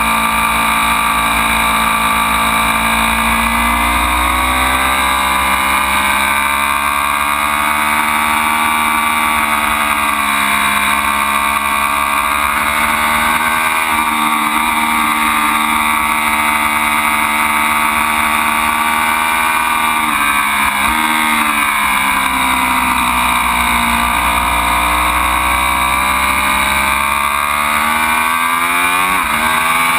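Ducati Panigale V4's V4 engine running hard on track, its note falling and climbing again and again with throttle and gear changes, dropping several times and rising sharply near the end.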